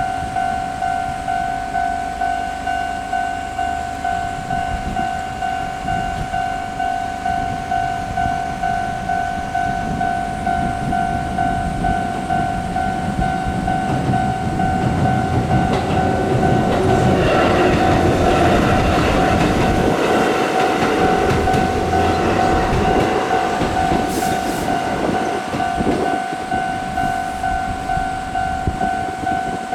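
Japanese level-crossing alarm ringing its steady, evenly pulsed electronic ding-ding, about two strikes a second. About halfway through, an electric train runs over the crossing, its wheel and running noise swelling and then fading. The alarm cuts off at the very end.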